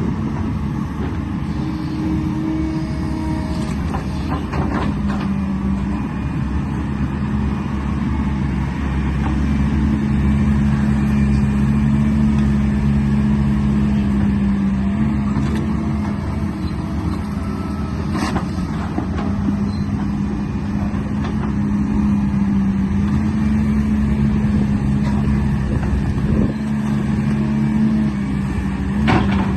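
Motor of a radio-controlled construction truck running steadily, its pitch shifting slightly now and then, with a few sharp clicks.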